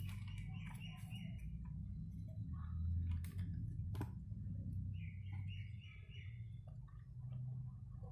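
A small bird chirping in two short runs of quick notes, one at the start and one about five seconds in, over a steady low hum. A few sharp clicks of small parts being handled come about three and four seconds in.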